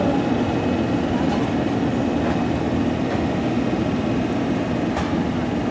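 Diesel engine of a Sakai SV512D single-drum road roller running steadily close by, a constant low rumble.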